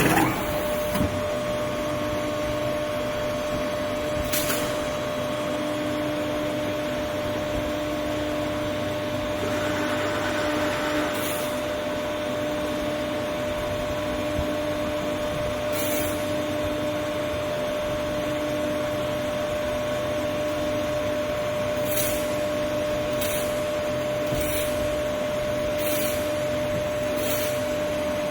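Rubber bale cutter's hydraulic power unit running with a steady hum on one held tone, a fainter lower tone coming and going. Sharp clicks sound every few seconds, more often toward the end.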